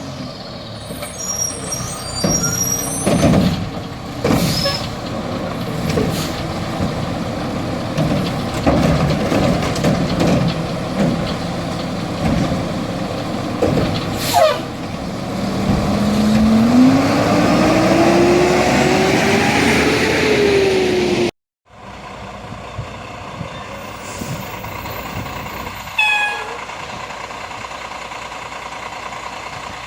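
Garbage truck working: its engine runs under load with knocks and clatter, then rises steadily in pitch for several seconds as it revs. After a sudden break, the truck runs more steadily and quietly.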